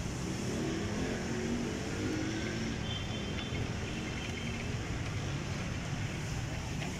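Motor oil glugging out of a plastic jug and pouring through a funnel into an engine's oil filler, over a steady low background rumble.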